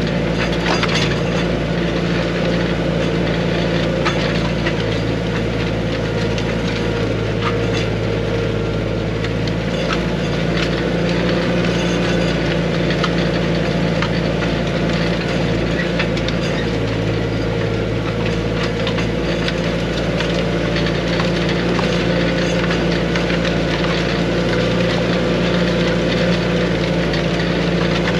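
Arbos 3055 tractor's engine running steadily under load while pulling a disc harrow through damp soil, heard from inside the cab. A scatter of short clicks and rattles from the harrow and cab runs over the engine.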